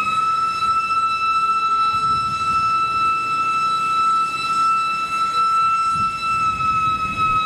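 Steam locomotive whistle sounding one long, steady, high blast.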